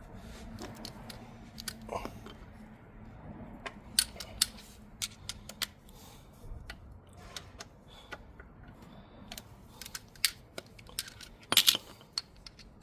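Scattered sharp clicks and light taps at an uneven pace, with the loudest pair near the end.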